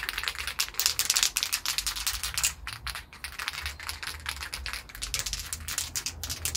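Aerosol spray-paint can being shaken: the mixing ball clatters inside in a rapid, continuous rattle, readying the paint for another coat.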